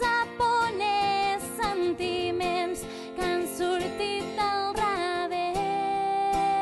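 A woman singing a ballad in Catalan live, accompanied by a strummed acoustic guitar, her voice gliding between notes with vibrato. About two-thirds of the way through she settles into one long held note.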